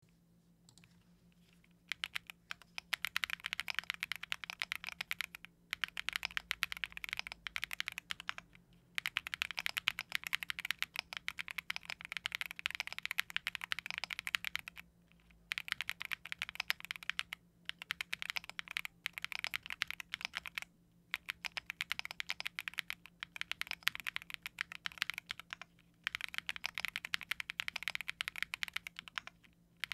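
Nemo67 mechanical keyboard with Neon switches, a polycarbonate plate, full foam and XMI keycaps, typed on quickly in runs of several seconds with short pauses between; the typing starts about two seconds in.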